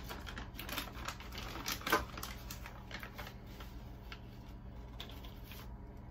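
A ring of metal measuring spoons clicking and clinking in the hand while a tablespoon is dug into a plastic pouch of baking powder. A quick run of small clicks comes first, loudest about two seconds in, then fainter scattered ticks.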